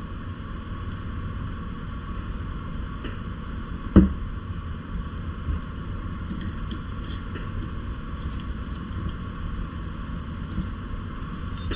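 Small metal parts of a bicycle air shock being handled: scattered light clicks and clinks, with one sharp knock about four seconds in, over a steady low hum.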